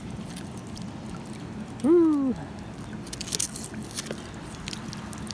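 Scattered light clicks and rattles from a fishing rod and spinning reel stuck to a neodymium fishing magnet as they are handled, with one short pitched vocal sound about two seconds in that rises and then falls.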